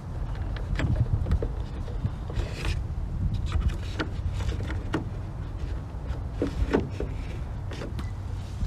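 Hand fumbling at a plastic bulb socket in a car's headlight housing, with scattered small clicks and scrapes as the socket is worked and twisted counterclockwise to lock. A steady low rumble runs underneath.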